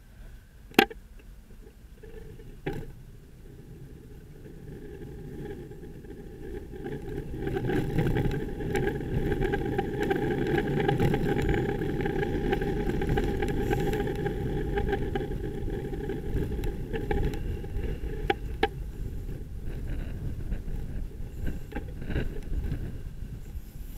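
City traffic and road rumble heard from a bicycle riding in traffic, with a double-decker bus running close alongside. The sound swells for about ten seconds in the middle, with a steady whine over the rumble. There is a sharp click about a second in.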